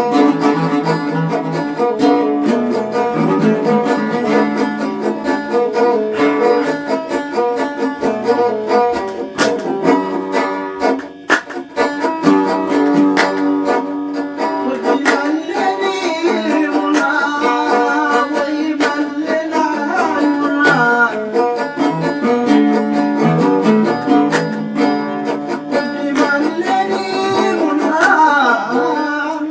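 Nubian song accompaniment played on oud and tanbour lyre, plucked strings carrying a steady stream of notes.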